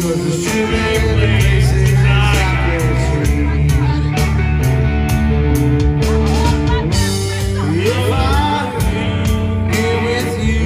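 Live rock band playing electric guitar, bass guitar and drums, with singing into a microphone over the band.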